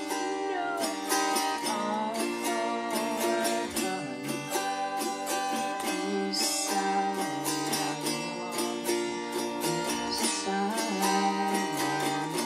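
Autoharp strummed in quick repeated strokes, holding a chord for a few seconds at a time before changing to the next. It is being played through to check its tuning.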